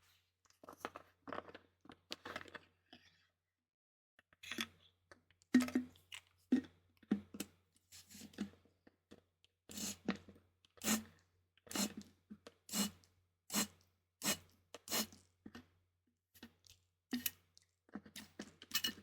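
Trigger spray bottle being pumped over and over, a string of short spritzes. They are scattered and soft at first, then come about once a second and louder in the second half, as the sprayer is emptied.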